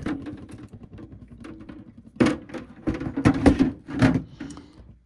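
Hard plastic helmet parts being handled: a string of knocks and clacks as a Darth Vader Black Series mask shell is lifted off its frame and set down, the busiest stretch from about two to four seconds in.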